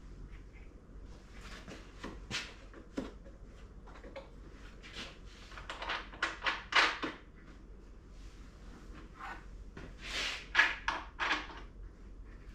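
Irregular knocks, clunks and short scrapes of parts being handled and set in place, in two clusters around the middle and near the end; no motor is running.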